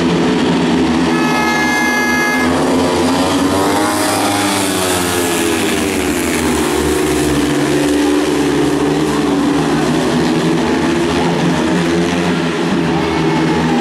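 Several speedway bikes racing, their 500 cc single-cylinder methanol engines revving up and down as the riders go through the corners. A short, high, steady tone cuts in about a second in and lasts about a second and a half.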